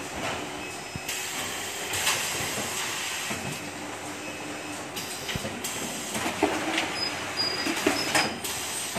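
Automatic carton case packing line running: a steady mechanical hum and hiss, broken by scattered clacks and knocks from the conveyors and carton-handling mechanisms.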